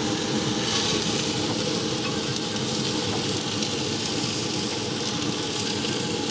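Thick bone-in cowboy ribeye sizzling steadily on grill grates heated to over 600 degrees above direct flame, while melted compound butter is brushed onto it.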